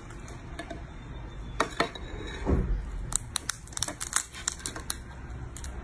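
Cooked crab's shell cracking and snapping as the body is pulled apart by hand: a run of sharp cracks, most of them packed between about three and four and a half seconds in.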